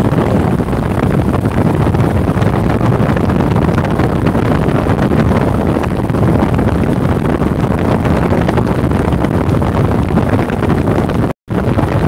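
Khaitan Galaxy 12-inch table fan running, its airflow buffeting the microphone as a loud, steady rushing wind noise. The sound cuts out completely for a split second near the end.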